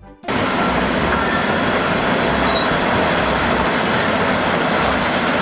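Heavy vehicle sound effect: a dense, steady running noise that sets in abruptly about a quarter second in and holds level.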